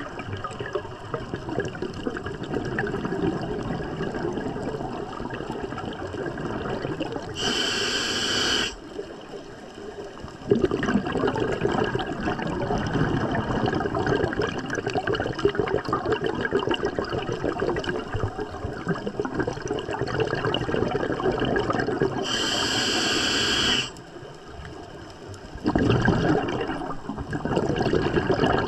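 Scuba regulator breathing underwater: long stretches of exhaled bubbles, twice broken by a short hissing inhale, with a brief lull after each before the bubbles return.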